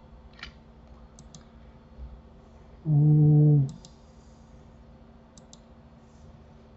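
Sparse computer mouse and keyboard clicks, with a single short hummed 'mm' from a man's voice, held on one pitch, about three seconds in.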